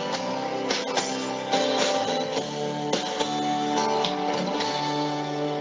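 Instrumental introduction of a gospel song: guitar-led band music with regular percussion hits, before the vocals come in.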